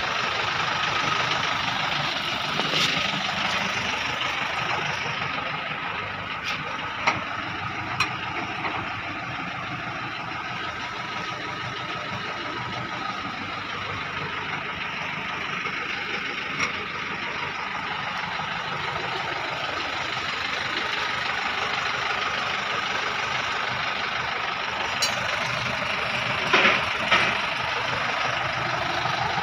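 Engine idling steadily, with a few sharp metallic knocks, the loudest two near the end.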